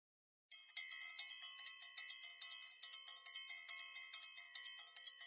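Faint bright chime or bell tones, many ringing pitches at once, re-struck about four times a second. They start about half a second in, after silence.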